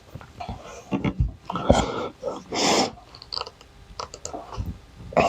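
Handling noises of a rubber window glazing seal being worked onto the edge of the glass by hand: scattered small clicks and short rustles and squeaks.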